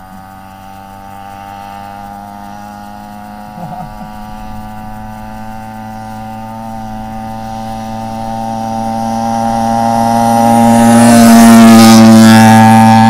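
Small pocket-bike engine running at steady revs as it draws nearer, growing louder to a peak near the end and then starting to fade.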